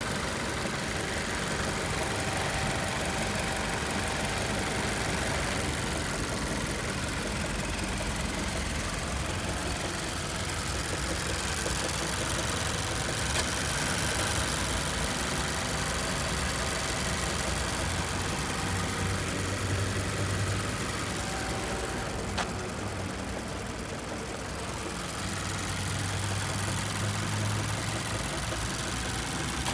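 Mazda6's warm 2.5-litre SkyActiv-G four-cylinder petrol engine running at idle with a knock in it, fairly distinct, that appears after 15–20 km of city driving and whose cause the owner doesn't know.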